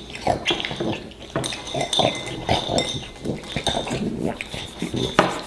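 A metal spoon clinking against a ceramic cereal bowl, mixed with dog-like snuffling and eating noises, as a run of short irregular sounds.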